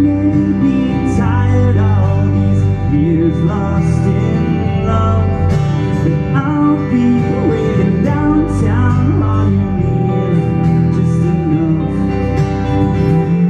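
Acoustic-electric guitar played live through a PA, with notes and chords held and left ringing over a steady low tone.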